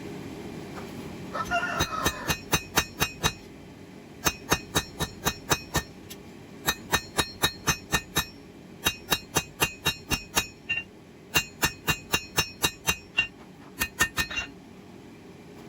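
Hand hammer striking 1084 high-carbon steel on an anvil, drawing out a knife handle. The blows come in runs of about six to nine ringing strikes, roughly four a second, separated by short pauses.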